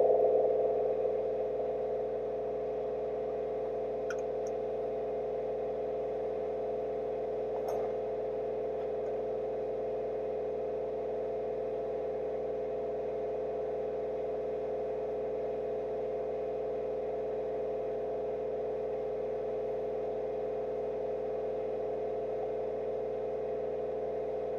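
A steady, even hum that eases down in level over the first two seconds and then holds constant, with a couple of faint ticks.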